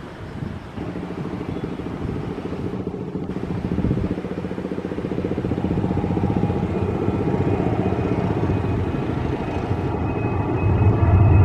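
Airliner engines growing steadily louder as the aircraft approaches, a steady whine coming in near the end.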